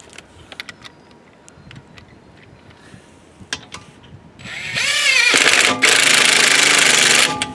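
Impact wrench running a lug nut down onto a wheel hub: the motor whines and drops in pitch as the nut takes up, then hammers loudly for about two seconds before stopping. Light metallic clicks of lug nuts and sockets being handled come before it.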